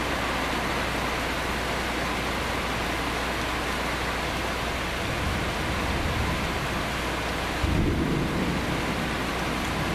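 Steady heavy rain, with thunder: a low rumble builds about five seconds in, then a louder, sudden clap nearly eight seconds in that rumbles away over about a second and a half.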